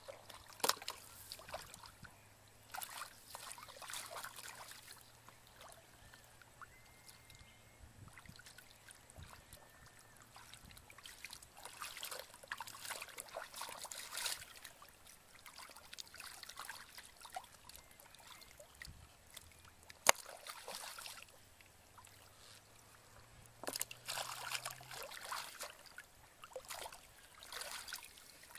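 Hands splashing and groping in shallow muddy water, in irregular bursts of sloshing and trickling, as fish are caught by hand. One sharp knock about twenty seconds in.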